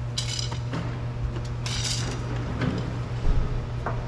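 Small metal objects clinking and rattling in two short bursts, about a quarter second and two seconds in, then a knock a little after three seconds, over a steady low hum.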